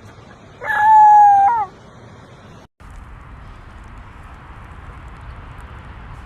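A loud, high-pitched animal call, held for about a second with its pitch bending at both ends. It is followed by a cut to steady background noise.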